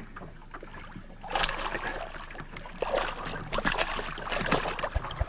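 Hooked sea catfish thrashing at the surface beside the boat, splashing water in quick irregular bursts, starting about a second and a half in.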